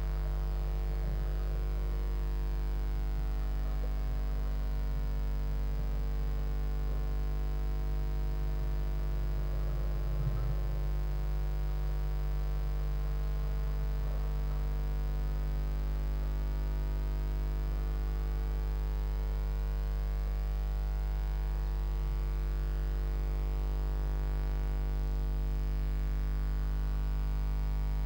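Steady electrical mains hum with many even overtones, unchanging throughout, with one small faint bump about ten seconds in.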